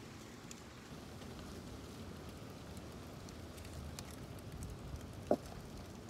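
Gusty wind blowing over the microphone: a steady low noise with scattered light crackles, and one short sharp sound about five seconds in.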